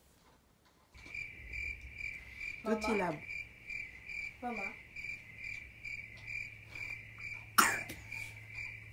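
A high, evenly pulsing chirp, cricket-like, over a low hum, starting suddenly about a second in. Twice a baby gives short squealing calls that fall in pitch, and there is a sharp knock near the end.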